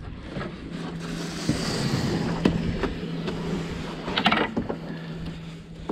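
Cardboard packaging scraping and rustling as a large solar panel is lifted and slid out of its box, with scattered knocks and a louder scrape about four seconds in. A steady low hum runs underneath.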